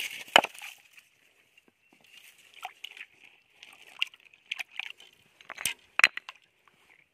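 Water sloshing and splashing in a shallow stream pool as hands work through it, with a few sharp splashes: the loudest less than half a second in, two more close together near the end.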